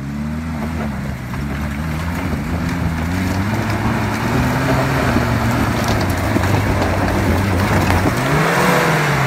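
Daihatsu Feroza's 2.8 turbo engine running under load as the 4x4 climbs a rocky dirt track, its revs wavering up and down. It grows louder as the vehicle approaches, with a brief rev-up and drop near the end.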